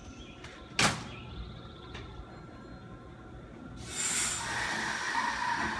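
Nankai 7000 series electric train at the platform: a single sharp knock about a second in, then near the end a burst of air hiss and louder running noise with a steady whine as the train begins to pull away.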